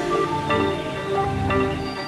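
Background music: a melody of sustained notes that change about every half second over a low bass.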